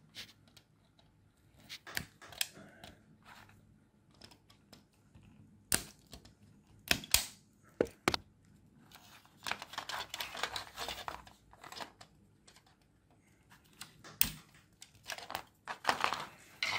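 Plastic clicks, scrapes and creaks as a circuit board is worked loose from a plastic carbon monoxide alarm case, where twisted plastic tabs hold it. There are scattered sharp clicks and two longer stretches of scraping, rustling noise, one in the middle and one near the end.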